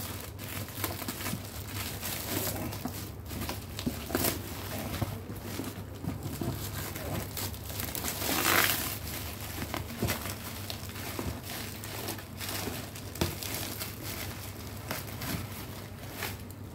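Thin black plastic bag wrapping being pulled and torn off a cardboard box, crinkling and rustling irregularly, with a louder stretch about eight and a half seconds in.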